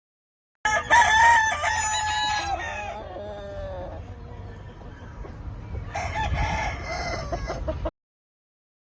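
Gamefowl rooster crowing: a loud crow starting abruptly just under a second in and trailing off in a falling tone, then more crowing and clucking from about six seconds in until the sound cuts off abruptly.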